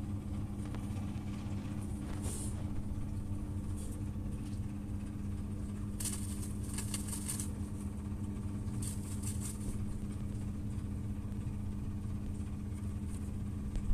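A steady low motor hum, like an engine running, with a few short dry crackles about two seconds in, again between six and seven and a half seconds, and around nine seconds.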